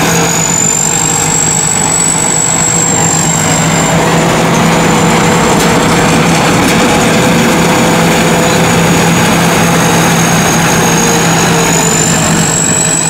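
Tracked rice combine harvester running under way: a steady, loud diesel engine note with a high whine above it that rises slightly a second or two in and again near the end.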